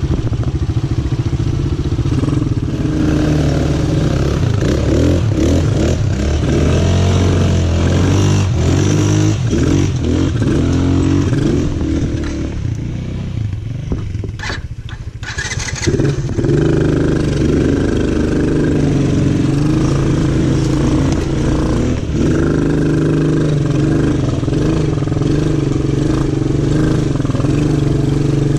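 Small ATV engine running under way, its pitch rising and falling with the throttle. Around the middle it eases off, with two sharp clicks, then pulls steadily again.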